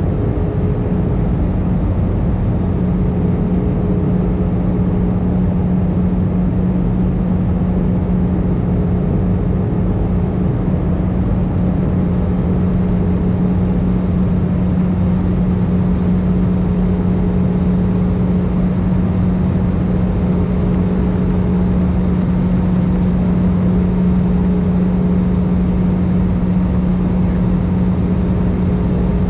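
Steady cabin noise of an Airbus A319 on descent, heard from a seat over the wing: the engines' drone and rushing air, with a constant low hum.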